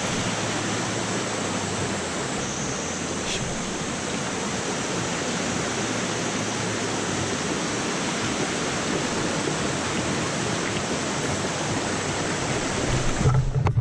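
Mountain stream rushing down a small rocky cascade: a steady, even rush of white water. Near the end comes a short low thump, and the water sound then cuts off suddenly.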